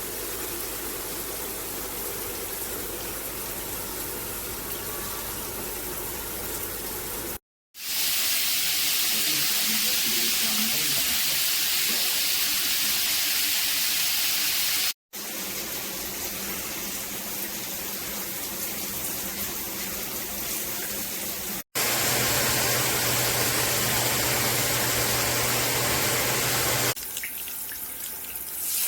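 Water spraying from a handheld shower head: a steady rushing hiss, broken by three brief silent cuts between takes.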